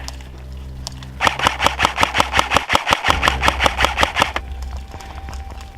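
Airsoft gun firing a rapid string of shots, about six a second, for roughly three seconds starting about a second in.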